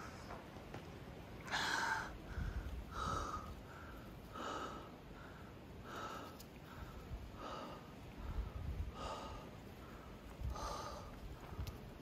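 A person's heavy breathing while climbing, a rhythmic in-and-out about once every second and a half, with a few faint low thuds of footsteps or camera handling.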